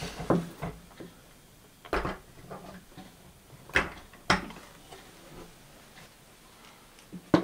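A handful of sharp knocks and clicks with quiet gaps between: a radio-controlled model truck being set down on jack stands on a wooden table and handled.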